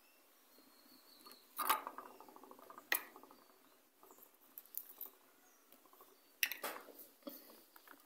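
Faint clicks, taps and scrapes of metal tweezers and a soldering iron tip working on a keypad phone's display connector. The loudest sharp taps come about two seconds in and again about six and a half seconds in.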